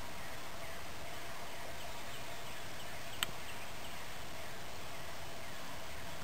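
Steady outdoor marsh background with faint, scattered short animal calls, and a single sharp click about three seconds in.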